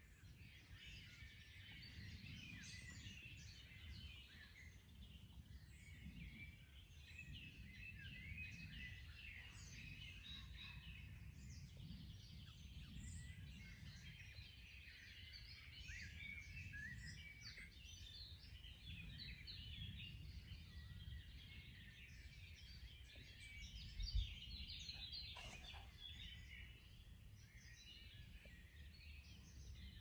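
Small songbirds singing, a steady chorus of many overlapping high chirps and trills, over a faint low rumble. A single brief low thump about four-fifths of the way through.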